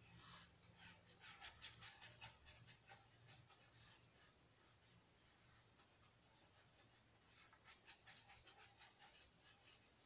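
Faint, quick scratchy strokes of a small paintbrush on paper, spreading water-thinned colour across a drawing. The strokes come in busy clusters, thinning out in the middle and picking up again near the end.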